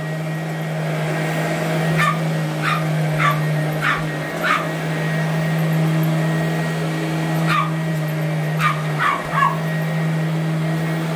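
Upright vacuum cleaner running with a steady hum while a small Boston terrier barks at it in short, sharp yaps, a quick run of five, then a pause, then four more.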